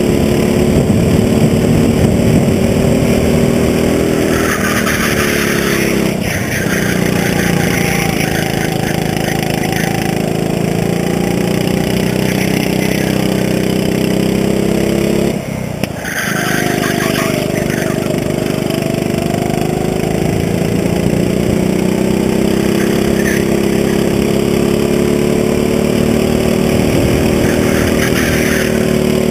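Go-kart engine heard from on board at speed, its pitch climbing and falling with the throttle through the laps, with a sharp drop and recovery about fifteen seconds in.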